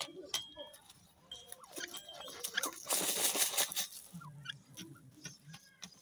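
Short, soft calls from a grey francolin, with scattered clicks and scratching on the dirt. About three seconds in there is a loud burst of scuffling noise lasting about a second.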